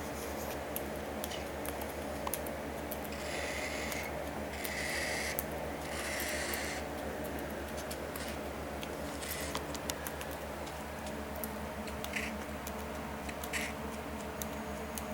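Faint scratching and rustling over a steady low hum, with three short raspy hisses between about three and seven seconds in and a couple of soft clicks near the end.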